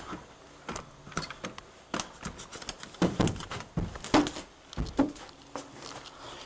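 Footsteps and knocks of someone climbing up, a string of irregular clicks and thumps with a few heavier thumps in the middle.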